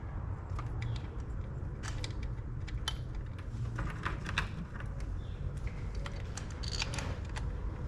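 Scattered light clicks and taps of small metal parts being handled as ignition coil bolts are started by hand into their holes, over a steady low rumble.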